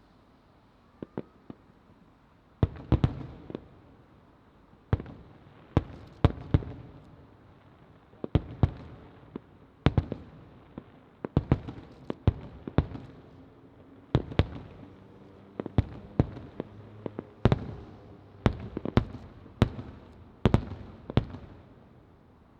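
Aerial firework shells bursting in an irregular series of sharp bangs, at times two or three a second, each followed by a short echoing tail. After a couple of faint pops, the bangs begin in earnest about three seconds in.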